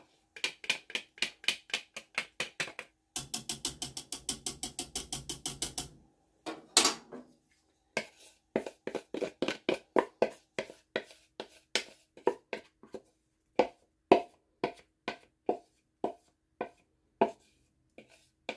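A whisk and then a wooden spoon scraping and tapping the inside of a mixing bowl, emptying a thick cornstarch slurry into a pot. The strokes come in a fast run at first and then slow to about two or three a second.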